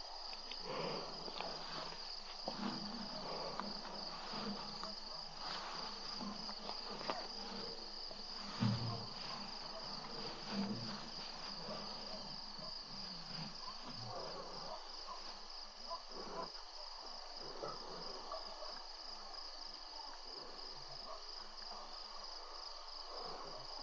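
Night insects, crickets, trilling steadily in a high, pulsing chorus, with scattered soft knocks and rustles and one louder low thump about nine seconds in.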